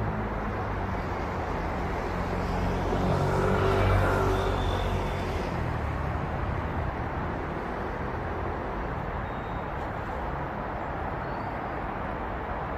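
Steady city road traffic: a continuous hum of cars and tyres, with one vehicle passing closer and louder, peaking about four seconds in and fading away.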